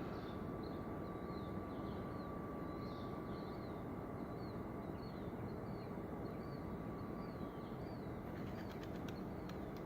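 Early-morning waterfront ambience: a steady low rumble of distant city traffic across the river, with small birds chirping again and again throughout. A faint steady hum stops about three-quarters of the way through.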